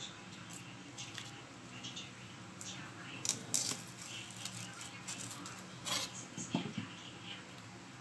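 Kitchen knife cutting a red onion on a wooden chopping board, with onion skin being peeled by hand: a scattering of short sharp clicks and knocks, the loudest a few seconds in and again about two-thirds of the way through.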